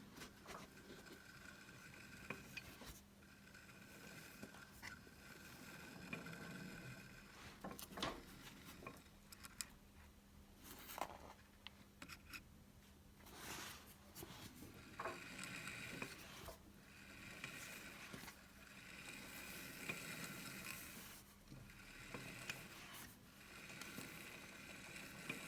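Faint scrapes and scattered clicks of metal parts and tools being handled, over a steady low hum.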